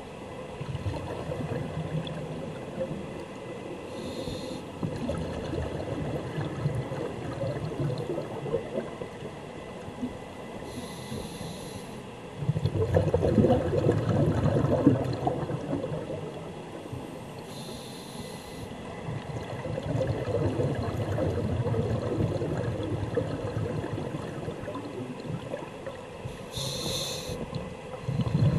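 Scuba diver breathing through a regulator underwater: a short hiss on each of four inhales, several seconds apart, each followed by a longer stretch of bubbling as the exhaled air escapes.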